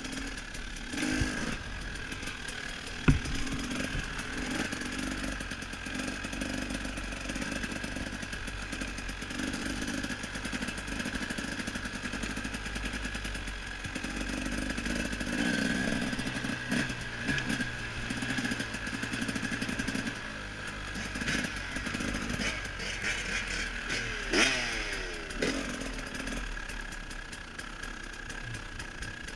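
KTM 300 XC-W two-stroke dirt bike engine running at low revs, rising and easing off. There is a sharp knock about three seconds in and a brief clatter near the end.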